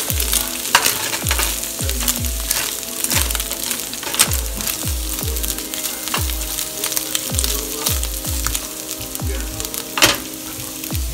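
Ground beef, garlic and chopped onion sizzling in a frying pan, stirred with a plastic slotted spatula that scrapes and clicks against the pan. Background music with a steady beat, about two kicks a second, plays under it.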